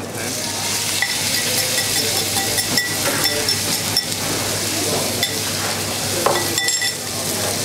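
Thin strips of marinated pork sizzling in a hot non-stick frying pan, a steady hiss dotted with sharp clicks and pops.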